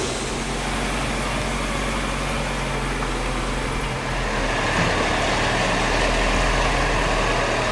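A four-wheel drive's engine running steadily with a low hum, getting a little louder about halfway through.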